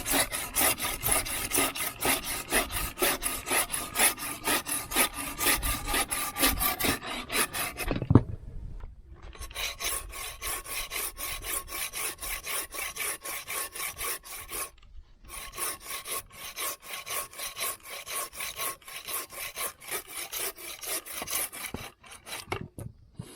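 Rapid, regular rasping strokes of a hand file or rasp worked back and forth, about five strokes a second. There is a short break about eight seconds in and another about fifteen seconds in.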